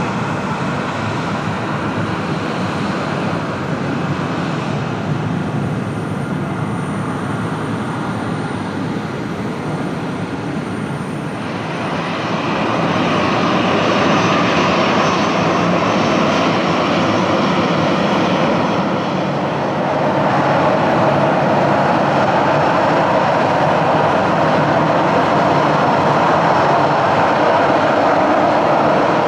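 Airbus A319 jet engines running at taxi power: a steady rushing hum with a whine in it. It grows louder about twelve seconds in and again near twenty seconds.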